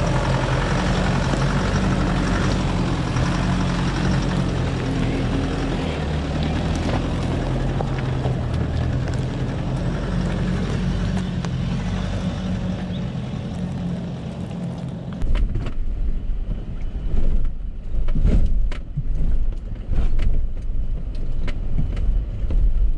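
Four-wheel drive engine running steadily at low revs as it crawls over a rocky track. About 15 seconds in the sound changes to a quieter background broken by loud, uneven knocks and bumps.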